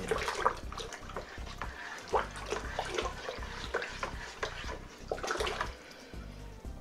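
A plastic paddle stirring fruit must in a plastic fermenting bucket: the liquid and crushed blackberries and rhubarb slosh and swirl irregularly. The paddle now and then knocks and scrapes against the bucket's sides.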